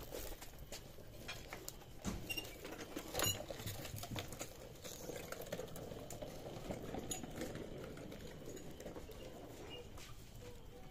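Wood fire crackling and popping under a charcoal kebab grill, over a low steady rush of burning, with scattered sharp pops, the loudest about three seconds in.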